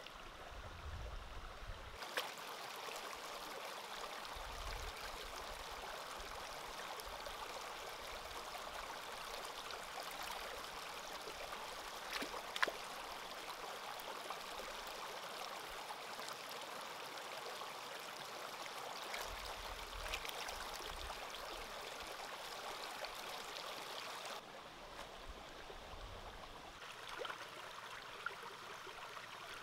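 Shallow stream running over rocks, a steady rush of water, with a few short clicks, the sharpest about twelve seconds in.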